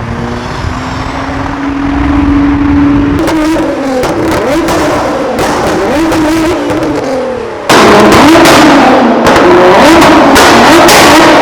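Nissan GT-R R35's twin-turbo V6 being revved, its exhaust firing rapid pops and bangs from a pops-and-bangs map. The bangs begin about three seconds in, and partway through the sound jumps abruptly much louder.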